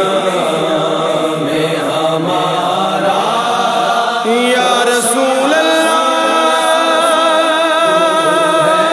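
Naat music: a layered, wordless vocal chorus chanting between verses, settling into long held notes about five seconds in.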